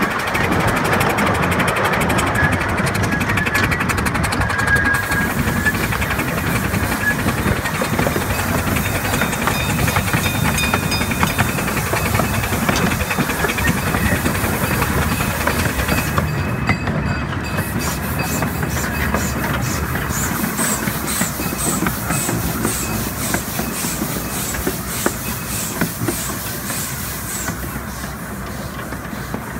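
Miniature ridable steam train running on its narrow track: a steady rumble and steam hiss, with the wheels clicking over the rails. In the second half a regular beat comes about twice a second.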